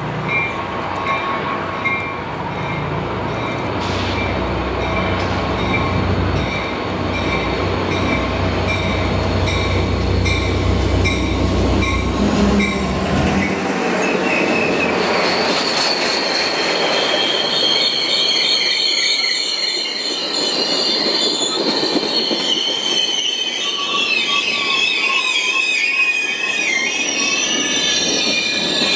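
Caltrain F40PH-2CAT diesel locomotive (EMD 16-cylinder 645 engine) approaching and passing with a heavy low engine rumble that drops away about halfway through. Then the stainless bilevel gallery cars roll by, their wheels squealing in wavering high-pitched whines.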